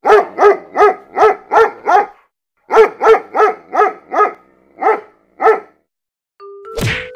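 Dog barking sound effect: quick, evenly spaced barks, a run of six, a short pause, six more, then two single barks. Near the end a short electronic tone and a rising whoosh lead in.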